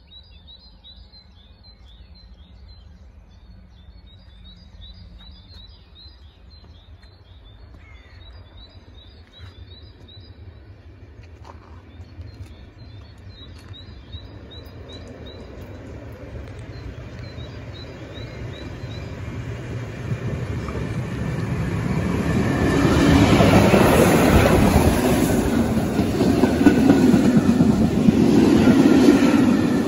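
Steam-hauled passenger train approaching and passing close by. A faint low rumble grows over about twenty seconds into a loud rumble and clatter of the locomotive and coach wheels as the train runs past.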